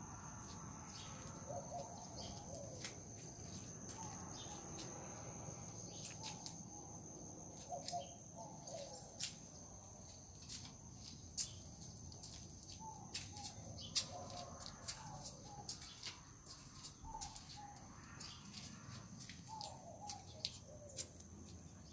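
Outdoor bird calls: scattered short chirps and sharp ticks over a steady high-pitched buzz, in a quiet setting.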